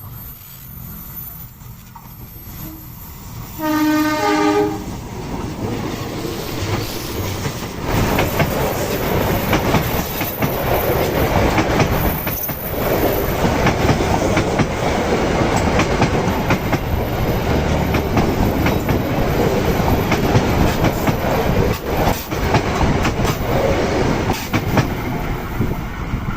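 Kutojaya Selatan passenger train approaching and passing close. The diesel locomotive's horn sounds for about a second, around four seconds in. From about eight seconds in, the passing train makes a loud, steady rumble with wheels clattering over rail joints.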